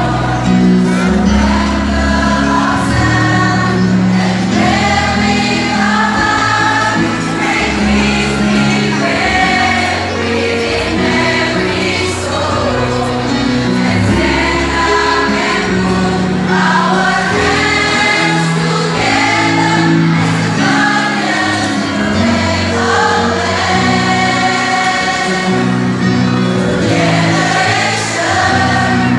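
A mixed choir of men and women singing together, with held low accompanying notes beneath the voices.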